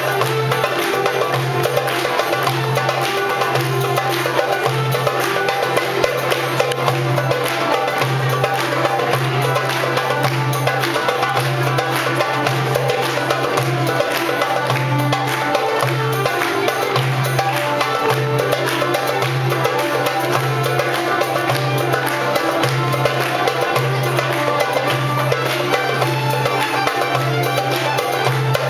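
Live folk dance music from a small ensemble of violins, clarinet, saxophone, hammered dulcimer and frame drums, with a steady pulsing beat and frequent drum strokes.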